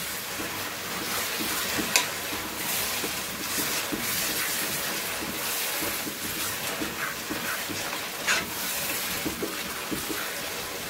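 A wooden spoon stirs a tomato and onion sauce frying in a metal pot, over a steady sizzle. The spoon scrapes and ticks against the pot, with a sharper knock about 2 seconds in and again near 8 seconds.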